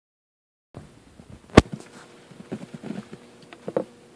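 Handling noise from a hand adjusting the camera at close range. After a brief silence come scattered rustles and light knocks, with one sharp tap about a second and a half in.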